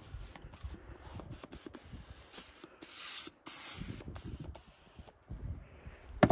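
Aerosol can of foam upholstery cleaner spraying in three short hisses about two and a half to four seconds in, the last two longer, with light handling and rustling noises around them.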